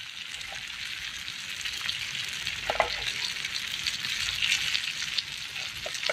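Food frying in hot oil in a pan: a steady sizzle with scattered small crackles.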